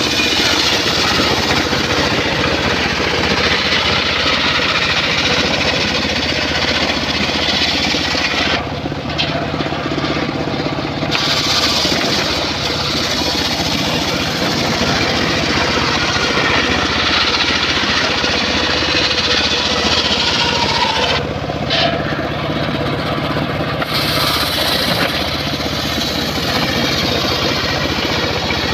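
Circular saw cutting through wood, a loud continuous cutting noise over the low hum of its drive. The cutting noise eases twice for about two seconds, leaving the motor running between cuts.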